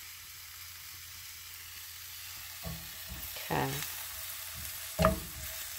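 Asian greens and onions sizzling in a cast iron skillet, a steady faint hiss. A thump comes between two and three seconds in, and a sharp knock with a brief ring after it comes about five seconds in.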